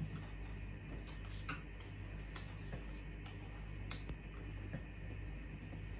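Faint, irregular clicks and smacks of people chewing pizza, about one or two a second, over a low steady hum.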